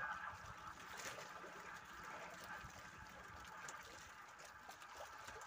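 Faint sea water lapping and trickling against a small outrigger fishing boat, with a few soft knocks.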